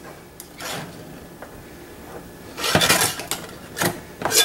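Knife scraping and clicking against the metal lid of an opened tin can as the lid is pried up, in a few short bursts, the loudest about three seconds in.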